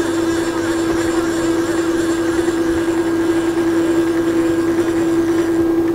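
6012 CNC router's stepper motors whining at one steady pitch as the head is jogged from a handheld pendant, starting and stopping abruptly.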